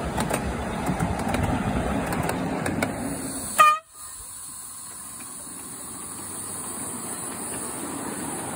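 Miniature railway carriages rumbling past with scattered clicks from wheels on rail joints. About three and a half seconds in there is one short horn toot, then the sound cuts to a quieter steady background noise.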